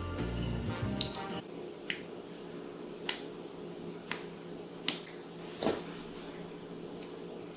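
Background music breaks off about a second and a half in, followed by a string of sharp snaps, roughly one a second.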